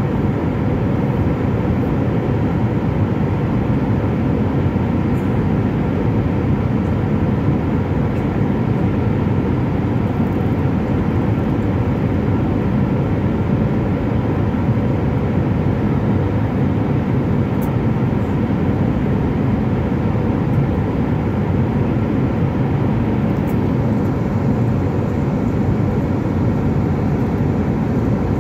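Jet airliner cabin noise during the climb after takeoff: the wing-mounted turbofan engines and the airflow make a steady rush, with a few faint steady tones above it.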